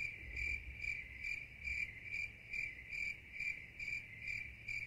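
A cricket chirping steadily, about two high chirps a second, over a faint low hum.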